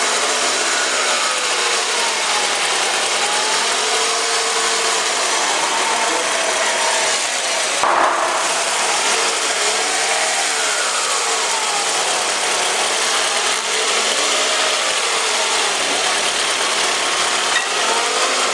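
Toyota Estima ACR50W's CVT making a steady scraping, rattling noise with a whine that rises and falls in pitch every few seconds: the sign of a failing transmission, the rattle coming from around the final drive gear inside the CVT.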